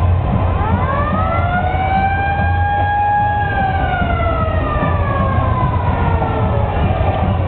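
A siren winding up about half a second in, holding its pitch for a couple of seconds, then winding slowly down, over a low steady rumble.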